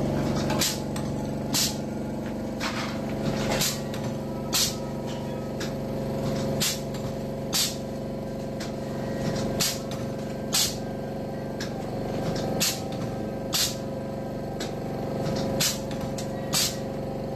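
Wire straightening and cutting machine running with a steady motor hum, its cutter snapping through the wire in sharp clicks that come in pairs about a second apart, a pair roughly every three seconds.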